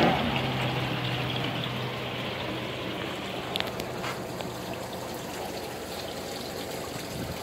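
Spring water pouring in a steady stream into a 20-litre water canister being filled.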